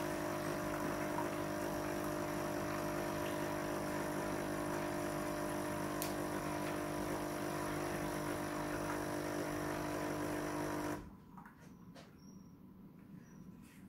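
Nescafé Dolce Gusto Genio S capsule machine's pump running with a steady hum as it dispenses into the cup, then cutting off abruptly near the end.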